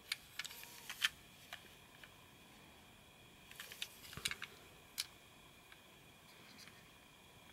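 Plastic Plarail 500 Series Shinkansen toy car handled and turned over in cotton-gloved hands, giving light clicks and rubbing in two clusters, about a second in and again around four to five seconds in. A faint steady high tone runs underneath.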